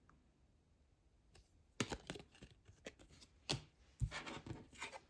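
Trading cards being handled and slid against one another: near silent at first, then a string of short scrapes and taps from just under two seconds in.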